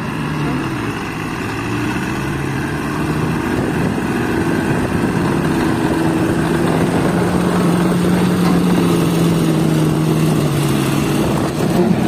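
Heavy MAN truck's diesel engine running under load while pulling a trailer carrying a concrete girder through mud. The engine note rises slightly about two-thirds through, eases back just before the end, and grows gradually louder throughout.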